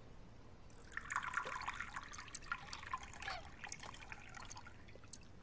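Wine poured from a metal ewer into a cup, trickling and gurgling from about a second in until a little past four seconds.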